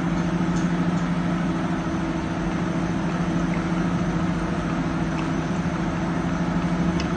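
Steady machine hum with an even hiss behind it, unchanging throughout, from a running appliance motor such as a kitchen fan.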